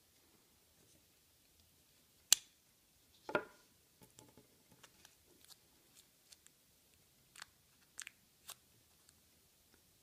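Handling sounds of a Victorinox Spartan pocket knife as its small tools are fitted into the new scales. There is one sharp click a little over two seconds in, then a short rattle, then a scatter of faint clicks and taps.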